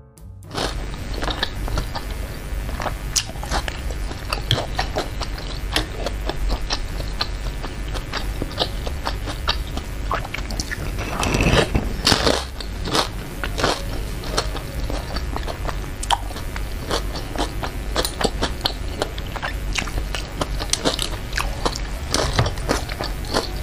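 Close-miked chewing of meatballs in chili broth: wet mouth sounds with many small clicks. About halfway through comes a louder puff of breath through pursed lips, blowing against the chili heat.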